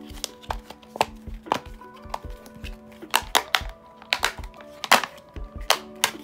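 Silicone bubbles of a planet-themed simple dimple fidget popper being pushed in and snapping through, an irregular run of sharp clicks, two or three a second.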